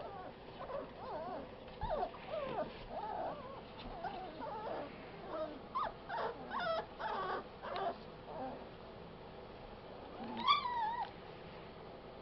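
Five-week-old puppies play-wrestling, giving a run of short high yips and whines through the first eight seconds or so, then one louder, drawn-out cry near the end.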